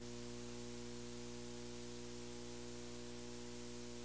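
Steady electrical mains hum with a layer of hiss, unchanging throughout.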